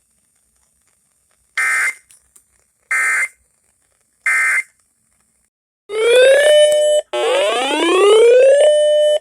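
Emergency Alert System data code: three short, identical digital screeches about a second apart, the length of an end-of-message burst. About six seconds in, a loud electronic alert tone starts, gliding upward in pitch over and over like a siren whoop and briefly holding steady near the end.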